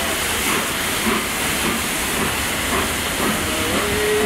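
Steam hissing steadily from the Peppercorn A1 Pacific steam locomotive 60163 Tornado as it stands at the platform.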